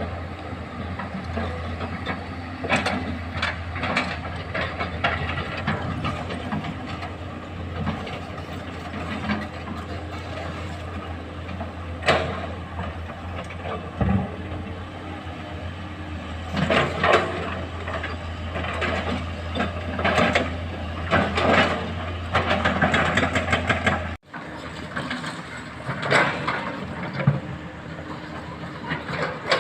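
Komatsu excavator's diesel engine running steadily with a low hum, over irregular clatter and knocks as sandstone is loaded into a dump truck.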